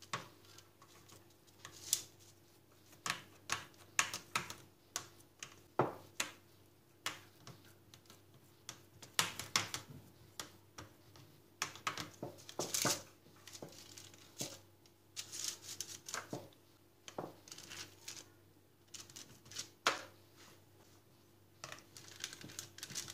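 Metal spoon pressing and scraping ground beef into a round patty cutter on baking paper over a metal baking tray: irregular small taps, clicks and scratches with crinkles of the paper.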